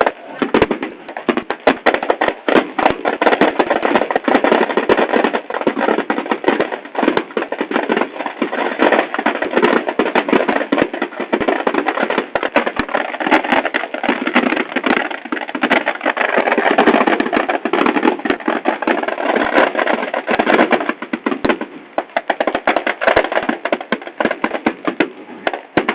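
Large wood bonfire burning fiercely, with a dense, fast crackling and popping that thins out over the last few seconds.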